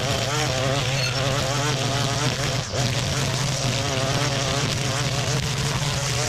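Gas string trimmer running steadily as it cuts through tall grass. Its buzzing pitch wavers slightly under load, and it dips briefly about two and a half seconds in.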